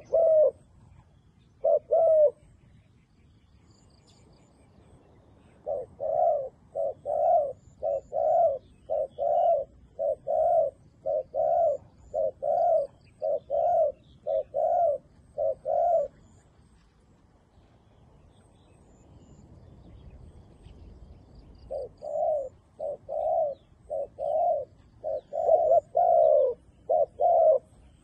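Dove cooing: a couple of low coos at first, then a long run of short repeated coos at about two a second, a pause of several seconds, and another run near the end. Faint high chirps of small birds sound in the background.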